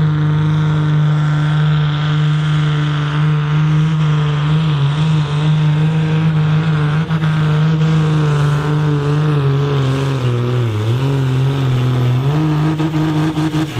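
Volvo BM 810 pulling tractor's diesel engine running at full load, dragging a pulling sledge. The engine note holds steady, sags about ten seconds in as the sledge bears down, then picks up again near the end.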